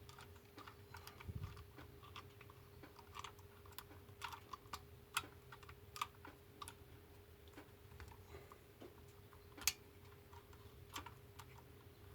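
Faint, irregular small clicks and ticks of a screwdriver turning a screw and small metal parts being handled, with one sharper click about two-thirds of the way through. A faint steady hum runs underneath.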